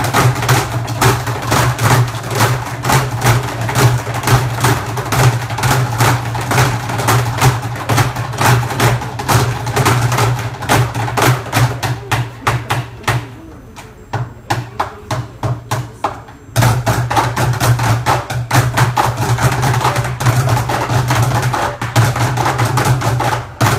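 Group drumming by a row of performers: fast, dense strikes over a steady low tone. The playing thins and quietens about halfway through, then comes back in all together a few seconds later.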